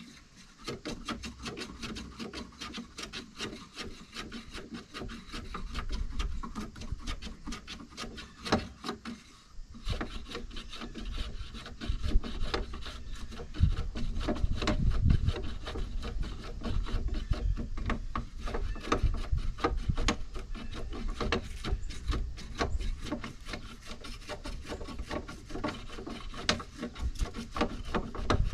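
Continuous rubbing and scraping on wood, a dense run of small clicks and scratches, with a short pause about nine seconds in.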